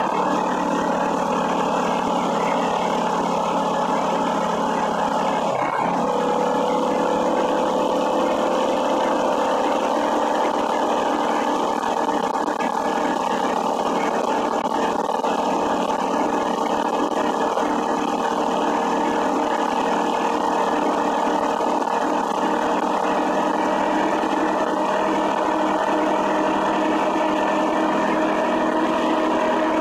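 Small motorized-bicycle engine running steadily at cruising speed, with wind noise. Its tone changes about six seconds in.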